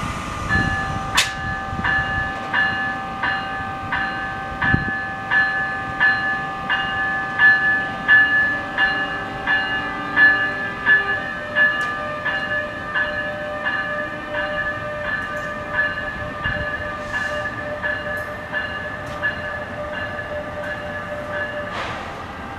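Locomotive bell on an NJ Transit Bombardier ALP-46A electric locomotive ringing steadily, about three strikes every two seconds, as the train pulls out of the station. The bell stops just before the end.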